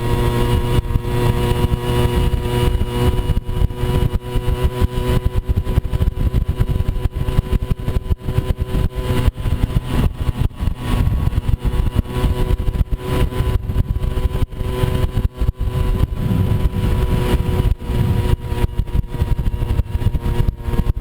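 Moped scooter engine running steadily while riding an off-road trail, heard under constant low rumble and frequent jolts.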